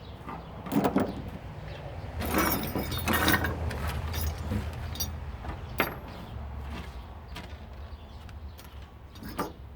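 Metal hand tools clinking and clattering as they are handled and set down in a tray, in a few separate bursts over a steady low rumble.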